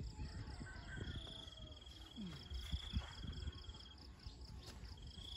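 Faint outdoor ambience: an insect's steady high-pitched trill in the background, starting about a second in, stopping about four seconds in and starting again near the end, over a faint low rumble.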